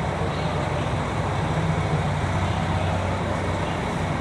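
Diesel engine of a limited express train running steadily, a constant low hum that holds its pitch.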